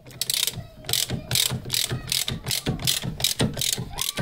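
Socket ratchet clicking rapidly as it is worked back and forth, running in and snugging up a brake caliper mounting bolt on the front hub. About four to five clicks a second.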